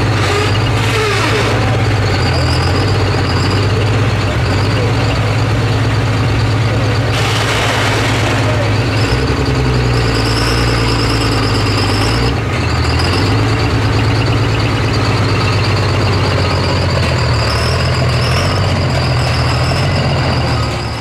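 Diesel pulling pickup's engine running steadily at low revs, a deep, loud drone with a high wavering whistle riding over it, as the truck rolls slowly. A brief rush of noise comes about seven seconds in.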